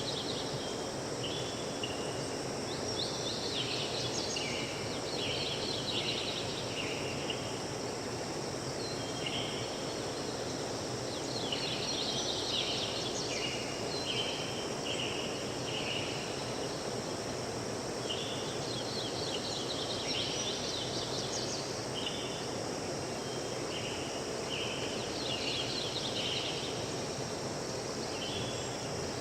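Forest ambience: a songbird sings a phrase of quick high notes, repeated every several seconds, over a steady even hiss and a faint, constant high insect drone.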